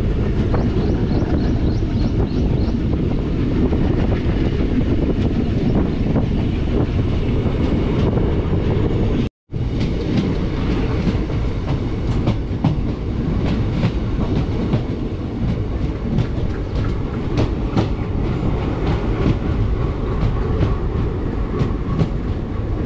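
Passenger train running along the track, heard on board: a steady rumble, with the wheels clicking over rail joints, the clicks clearer in the second half. The sound cuts out for a moment about nine seconds in.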